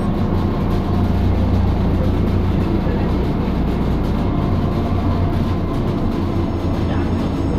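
Inside a Yutong ZK6180HGC articulated bus on the move: a steady low rumble of the engine and the road.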